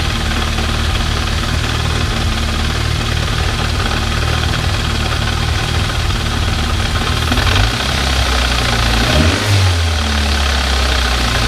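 Turbocharged Nissan GA16DE 1.6-litre four-cylinder in a B13 Sentra idling steadily on its first start after the turbo install. From about seven seconds in, its speed shifts a few times.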